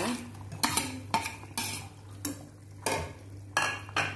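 A metal spoon scraping spice paste off a plastic bowl and knocking against the rim of an aluminium cooking pot, then stirring the broth: a series of sharp, irregular clinks and knocks.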